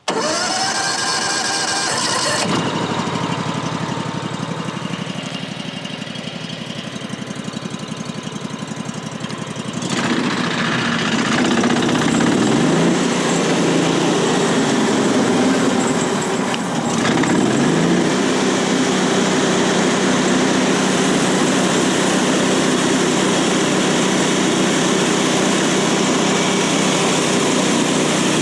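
Gas engine of a Woodland Mills HM136MAX bandsaw mill starting up and running, then throttled up about ten seconds in to drive the band blade at high speed, with its pitch briefly sagging and recovering twice before running steadily.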